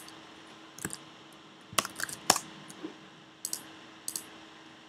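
Scattered computer keyboard keystrokes and mouse clicks, about seven sharp taps spread unevenly over a few seconds, over a faint steady hum.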